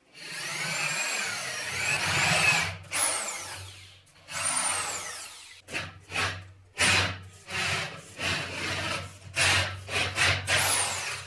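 Electric drill boring into a metal pipe held in a vise. Its motor whine rises and falls in pitch: one long run of about three seconds, then a string of short bursts through the second half as the trigger is pulsed.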